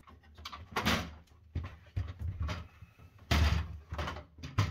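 Plastic refrigerator shelf with the water filter assembly attached, clicking and knocking as its tabs are pressed and it is lifted and pulled out of its slots: a series of short knocks and rattles, the loudest about three and a half seconds in.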